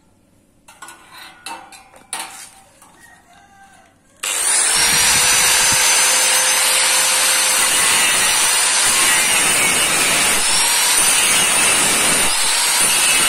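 Angle grinder with a cut-off disc cutting into a square hollow steel pipe, starting abruptly about four seconds in and then running steadily and loudly with a high whine. Before it starts, only a few light knocks.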